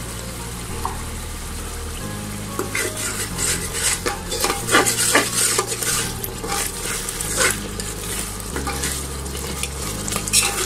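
Onion paste and ground spices sizzling as they fry in oil and ghee in a pan, with a spoon scraping and stirring against the pan from about two and a half seconds in. This is the masala being stirred down over the heat.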